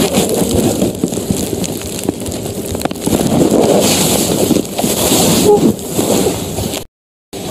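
A loud hubbub of several voices talking and calling out over one another; the sound drops out to silence for a moment near the end.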